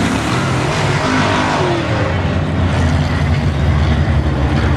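Semi late model race car engines running, a low steady drone at a nearly constant pitch.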